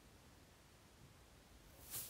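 Near silence: room tone, with a brief soft hiss just before the end.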